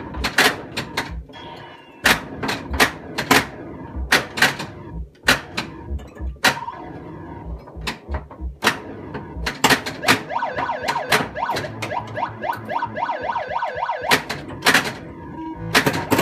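Bally Space Invaders pinball machine in play: a string of sharp, irregular clacks from the ball striking bumpers and the solenoids firing. The machine's electronic sound effects mix in, with a quick run of repeated rising, siren-like sweeps in the second half.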